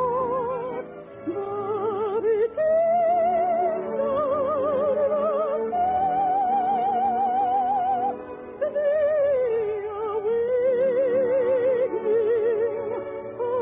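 Operetta singing with orchestra: a singer's voice with a wide vibrato holds long notes of a melody over the accompaniment. The sound is thin and narrow, like an early-1950s radio recording.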